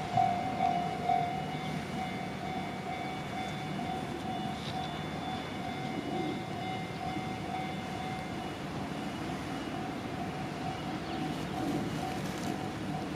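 Japanese level-crossing warning bell ringing in even strokes, about two a second, loudest in the first second and then fainter, over the steady running noise of a train on the Tokaido Main Line.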